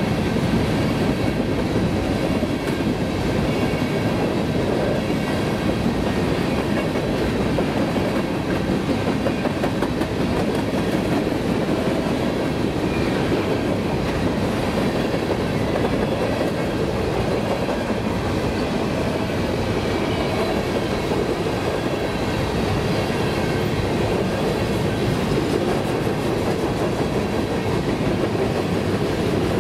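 Covered grain hopper cars of a freight train rolling past close by: a steady rumble of steel wheels on the rails that does not let up.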